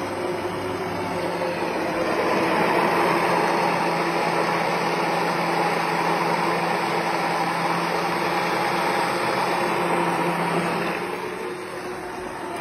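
Hand-held stick blender running steadily in a glass jug, puréeing a chunky tomato pasta sauce until it is smooth. The motor grows a little louder about two seconds in and eases off somewhat near the end.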